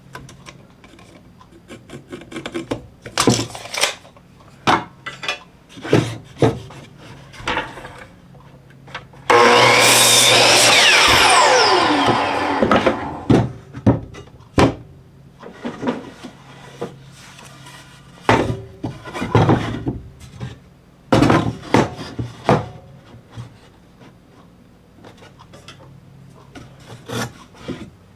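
Wooden 2x4 boards being handled with scattered knocks and clatter. About nine seconds in, a miter saw runs and cuts through the 2x4 for a few seconds, then its motor whine falls away as the blade spins down.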